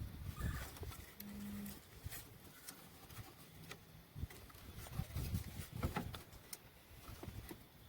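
Scattered light clicks and low knocks of parts being handled, with a short low hum about a second in.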